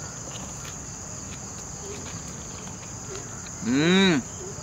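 A steady night chorus of crickets, with a man's closed-mouth 'mmm' of enjoyment while chewing a bite of grilled mutton leg near the end, its pitch rising then falling.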